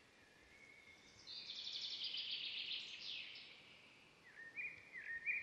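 Outdoor ambience with a small bird calling: a high, fast trill lasting about two seconds from about a second in, then a quick run of short chirps near the end.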